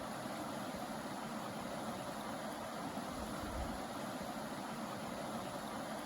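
Mountain river running fast: a steady, even rush of water with low rumbling underneath.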